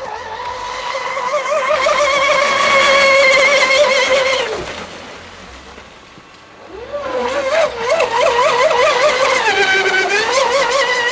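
Radio-controlled offshore racing boat's motor whining at high revs, its pitch wavering quickly. It cuts out after about four seconds, comes back about seven seconds in, and dips and climbs again near the end as the throttle changes.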